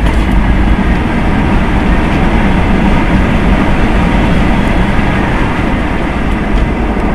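Loud, steady rumble of an Airbus A320's engines and wheels heard inside the cabin during the landing rollout, easing slightly near the end.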